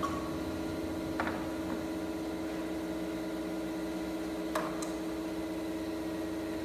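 A steady hum of held tones with two light knocks, about a second in and again after four and a half seconds, as a wooden stair tread and a spirit level are handled and set against the wood.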